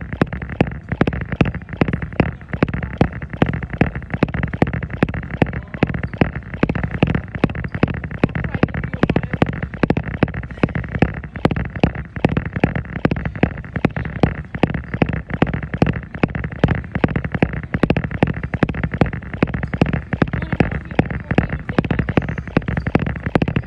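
Footfalls on a treadmill belt at a steady jogging pace, about three a second, over the continuous run of the treadmill.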